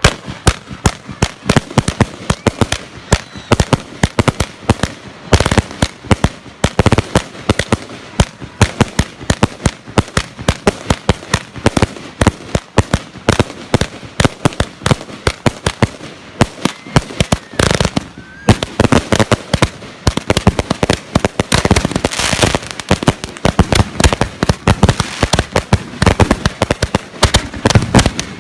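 Fireworks going off in a long, dense run of sharp cracks and bangs, many per second without a break.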